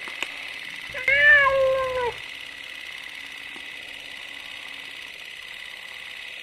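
A domestic cat meows once, a single call of about a second that starts about a second in and bends slightly downward, over a steady high hiss.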